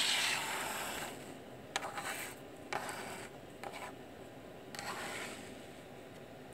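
Several short, rough scrapes a second or so apart: a hot soldering iron's flat tip scraping the gold-plated contact fingers off a memory module's edge.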